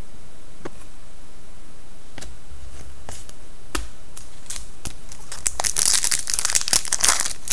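A trading-card pack's foil wrapper being crinkled and torn open by hand. A few light clicks come first, then from about five and a half seconds in a dense, continuous crinkling and tearing.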